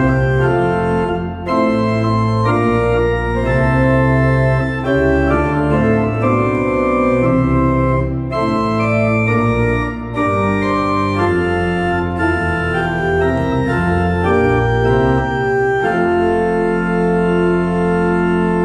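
Church organ playing a hymn tune in full sustained chords, with the bass line moving under them. The last chord is held for the final few seconds.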